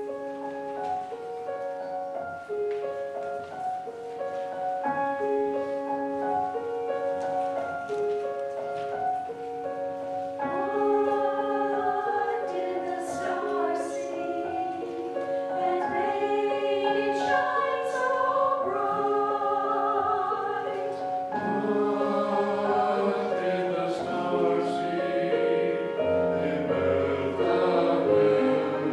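Small mixed-voice church choir of men and women singing together in sustained chords, growing fuller and louder from about ten seconds in.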